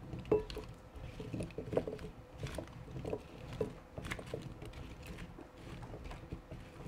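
Red potato chunks being tossed with melted ghee in a glass mixing bowl with a silicone spatula: soft, irregular knocks and clicks as the potatoes shift and the spatula scrapes and taps the glass.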